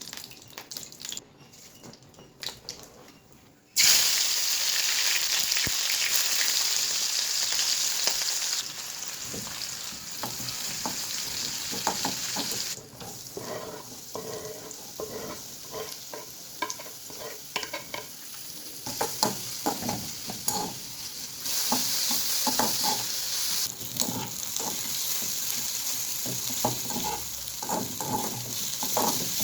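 Brinjal and potato frying in oil in a pan, sizzling, while a spoon stirs and clicks against the pan. The sizzle starts suddenly about four seconds in and eases and swells again as the stirring goes on.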